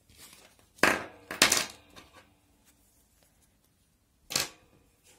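Handling noise close to the microphone: short rustles and light knocks as hands, a sleeve and the crocheted piece move. There are two loud bursts about a second in and another near the end.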